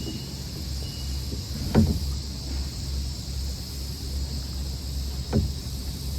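Wind rumbling on the microphone over a steady high insect drone, with two short knocks, about two seconds in and near the end, as the fish and gear are handled in the kayak.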